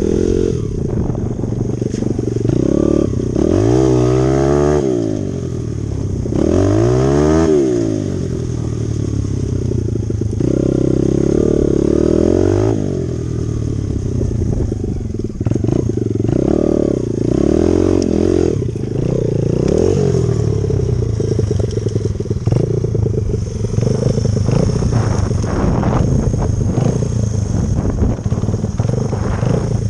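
Dirt bike engine being ridden, revving up and dropping back several times in the first half, then running on with a steady rattle and knocks from the bike over rough ground.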